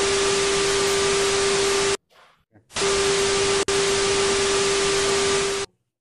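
Television static with a steady tone under it, like a no-signal test pattern. The hiss cuts out about two seconds in, comes back under a second later with a brief dropout, and stops shortly before the end.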